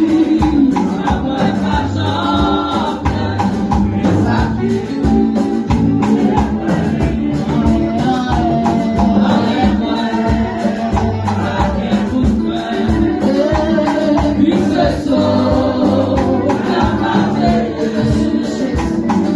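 Gospel worship song sung live by several voices, mostly women, into microphones over instrumental accompaniment with a steady beat.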